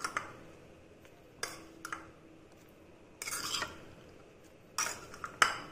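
Kitchen dishes and utensils knocking and clinking against each other and the countertop, about six separate knocks with pauses between, one with a brief faint ring, while chopped coriander is added to a ceramic bowl of mashed potato.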